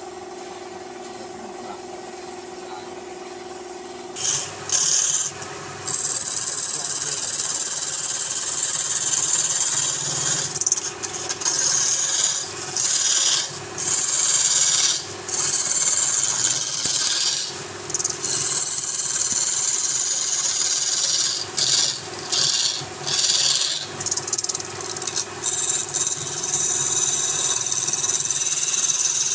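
Wood lathe motor running with a steady hum. From about four seconds in, a turning tool cuts the spinning wood with a hissing scrape, in repeated passes with short breaks between them.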